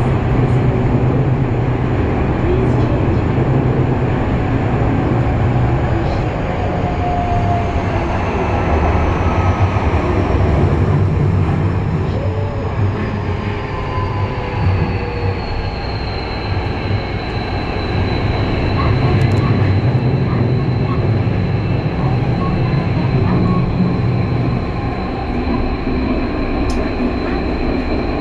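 Kobe Municipal Subway 6000 series train running at speed through a tunnel, heard from inside the car: a loud steady rumble of wheels on rail with a high electric whine that glides down in pitch a little before the middle, then holds steady.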